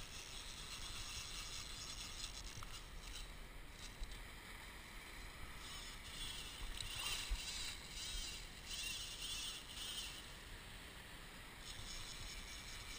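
Wash of shallow surf and wind on a head-mounted action camera's microphone, with a few seconds of brighter scratchy noise about halfway through.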